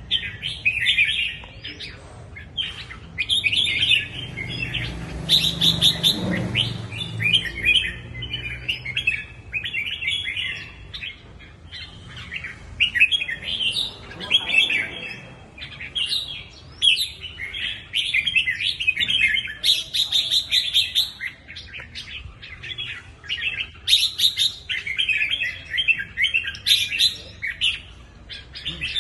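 Red-whiskered bulbul singing, a long run of quick chirping phrases broken by short pauses.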